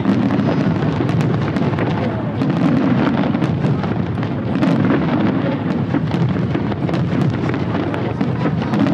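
Fireworks display: a dense, unbroken run of bangs and crackles over a low rumble that swells and fades every couple of seconds.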